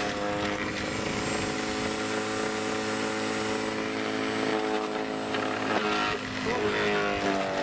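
Electric garden shredder (wood chipper) starting up and running with a steady motor hum. About six seconds in, alder twigs are fed into its hopper to be cut into smoking chips, and the pitch wavers as the motor takes the load.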